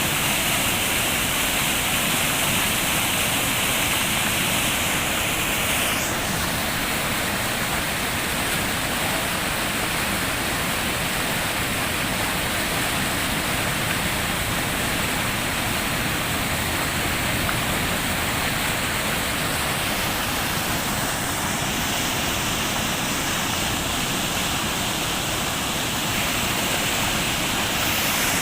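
Floodwater rushing, a loud, steady sound of fast-flowing water whose tone shifts slightly about six seconds in and again around twenty seconds in.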